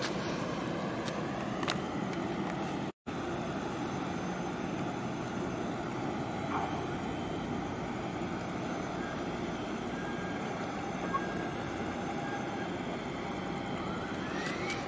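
Steady low engine drone from vessels moving in the harbour, the diesels of a tug and a container ship. The sound cuts out for a moment about three seconds in.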